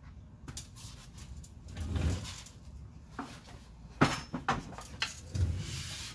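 Tools being handled and set down: scattered clunks and knocks. The sharpest come in a quick cluster about four seconds in.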